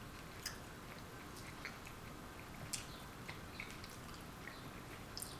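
Quiet chewing of blueberry waffles, with a handful of soft mouth clicks and smacks scattered over a few seconds above a steady low hiss.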